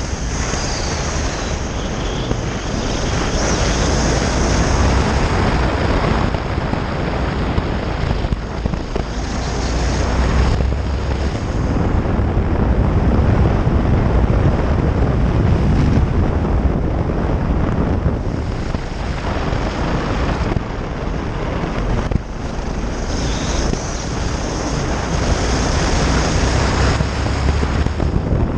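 Motorcycle riding along a gravel road: steady wind rush and buffeting on the microphone, with engine and tyre noise underneath, swelling and easing with speed.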